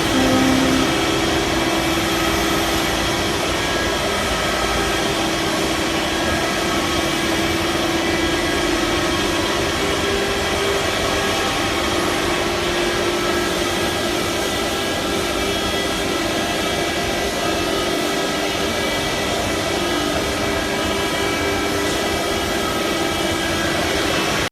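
Stone-carving CNC router running steadily, its spindle giving a constant hum with a held tone over an even noisy hiss.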